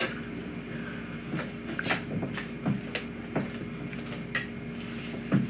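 Scattered light clicks and taps of a pen and a workbook being handled on a wooden tabletop, about eight separate small knocks, over a faint steady hum.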